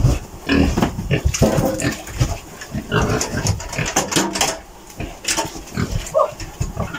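Domestic pigs grunting and chomping as they eat feed at a trough.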